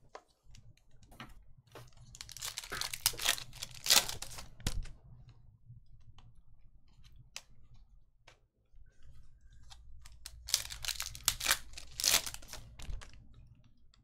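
Foil trading-card packs being torn open and their wrappers crinkled, in two bouts of crackling, with scattered light clicks and taps from the cards between.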